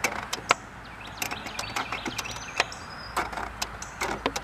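Irregular clicks and crackles over a light hiss from an old Silvertone tube clock radio as it is handled and tried.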